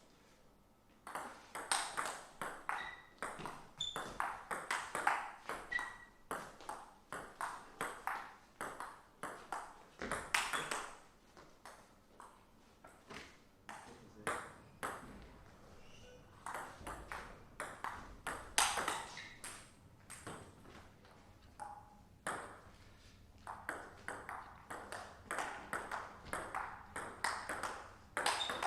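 Table tennis rallies: the ball clicking off the rackets and the table at a few hits a second, in runs broken by short pauses between points.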